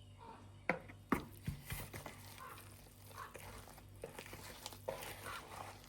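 Kitchen work: dishes and utensils knocking and clattering, with two sharp knocks about a second in and a few more around four to five seconds in.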